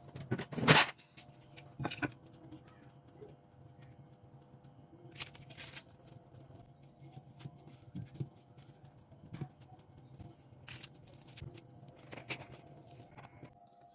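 Irregular light taps and knocks, the loudest a cluster about a second in, over a steady low hum.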